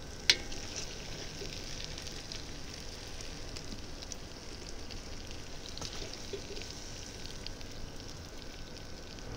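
Faint steady sizzling with scattered small crackles from the hot kazan and its food over the campfire. A single sharp click comes about a third of a second in.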